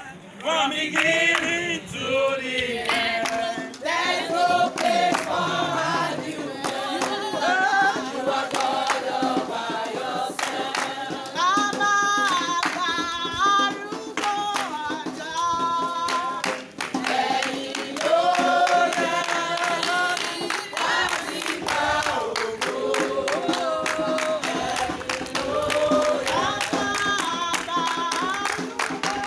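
A group of people singing together in chorus, with hand clapping.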